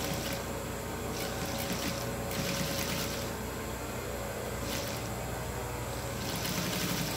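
Electric sewing machine stitching slowly along a fabric seam, running in several short spurts over a steady motor hum.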